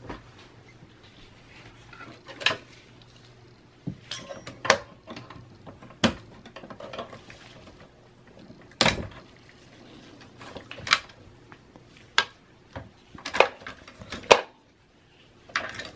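Irregular sharp clicks and knocks, about a dozen, from hands working inside a Dell OptiPlex small form factor PC case, unplugging cable connectors from the motherboard and handling parts.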